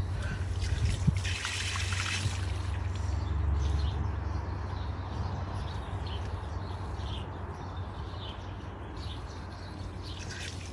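Water trickling from an outdoor garden tap, over a steady low rumble.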